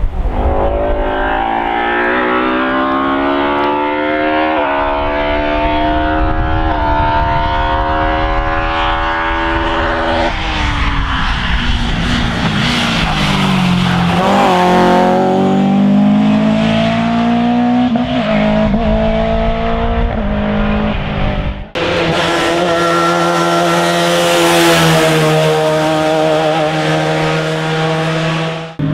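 Rally cars at full throttle. An engine climbs in pitch through several quick upshifts, falls away as the driver lifts off, then revs up again. After a cut about 22 s in, another car's engine is heard running hard.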